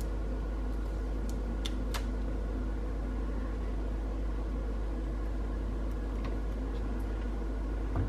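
A steady low hum with no change in level, with a few faint light ticks in the first couple of seconds.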